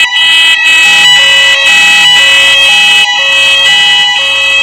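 Building fire alarm sounding loud: a steady high tone under two-tone signals that switch back and forth in pitch about twice a second.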